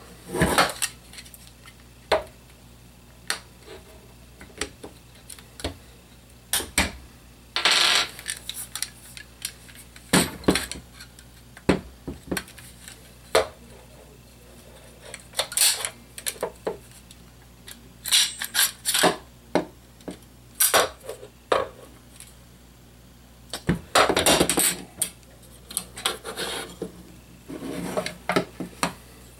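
Plastic and metal parts of a DBoys M4 CQBR SD airsoft rifle handled and taken apart: irregular clicks, clinks and knocks, with a few short scrapes and clusters of handling noise about 8 seconds in and again near the end.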